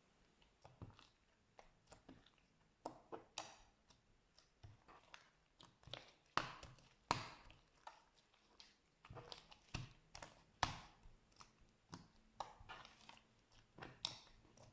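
Slime being handled, giving a run of irregular small clicks and pops, with a few louder pops near the middle.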